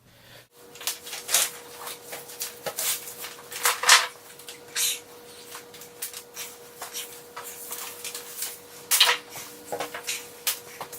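Scattered knocks, clicks and rubbing of wooden boards and tools being handled, with a faint steady tone underneath; no saw is running.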